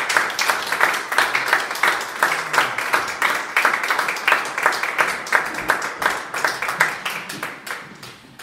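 A small audience applauding, dense clapping that thins out and dies away near the end.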